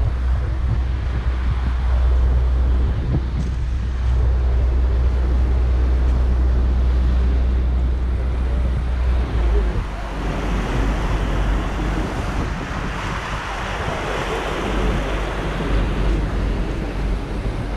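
Wind buffeting the microphone and water rushing past a harbor ferry under way. A deep, steady rumble eases about halfway through, while the rush of water grows louder.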